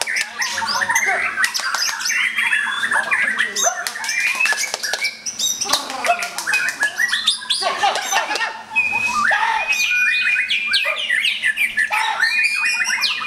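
Several caged white-rumped shamas (murai batu) singing at once, loud and overlapping: a dense run of rapid whistles, chatters and sharp clicking notes, with one long held whistle about two thirds of the way in.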